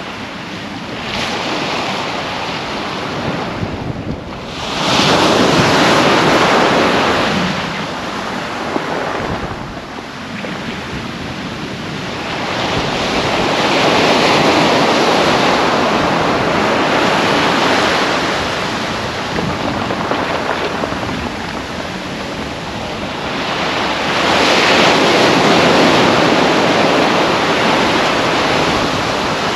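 North Sea surf breaking and washing up a sand and shingle beach, swelling and ebbing in three big surges about ten seconds apart.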